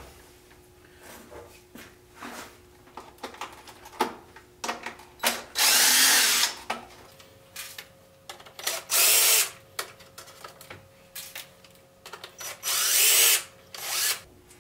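DeWalt cordless impact driver backing out the small body screws of an RC rock-racer truck, running in short bursts, three of them longer, with small clicks and knocks between.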